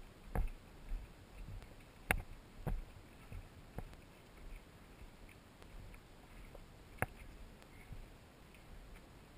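A hiker's footsteps on a rocky dirt trail, each step a dull thump through the body-worn camera, stronger in the first few seconds and softer after. Sharp clicks stand out about two seconds in and again about seven seconds in.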